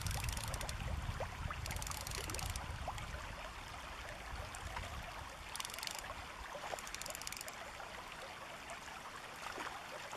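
Shallow river running over gravel, a steady babble of water. A low rumble of wind on the microphone fades out over the first few seconds, and three short bursts of fast ticking come through at about two, five and a half and seven seconds.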